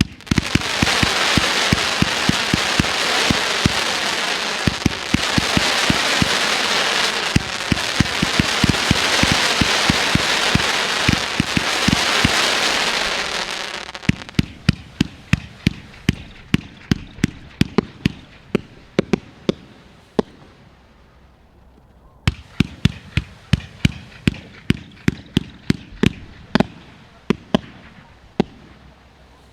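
Low-noise retail firework cakes firing: about fourteen seconds of a loud, dense hiss over rapid launch thumps, then a steady run of separate soft shots about two a second, pausing briefly a little after twenty seconds before carrying on.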